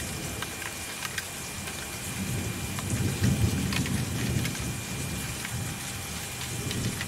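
Cardboard shipping box being opened and handled: flaps rustling and scraping with small clicks, and a louder low rumble in the middle as the box is worked over, over a steady hiss.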